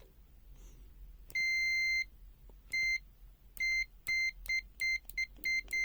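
Smart Sensor ST833A multimeter's continuity beeper sounding as the test probes touch: one beep of under a second, then a short one, then a choppy run of about seven short, uneven beeps. The stuttering beeps show intermittent contact, which the tester blames on a problem with the test pen contacts.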